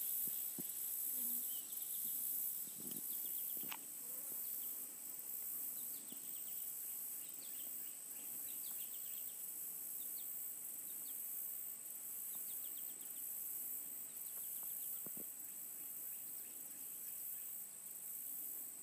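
Steady high-pitched chorus of insects, with a pulsing layer on top, and scattered short bird chirps and trills.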